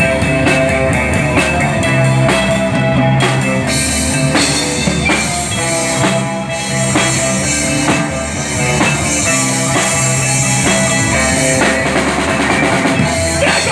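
Live rock band playing an instrumental passage between sung verses: drum kit beating a steady rhythm under electric guitar and bass.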